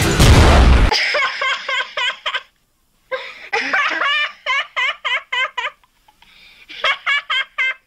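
A loud blast dies away about a second in. Then a cartoon child laughs in quick, evenly spaced ha-ha pulses, in three bouts with short silences between.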